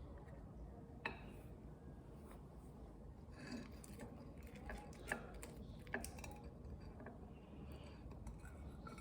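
Quiet tableware handling: a few sharp clicks and clinks, about a second in and twice more past the middle, with softer scraping between them over faint room hiss.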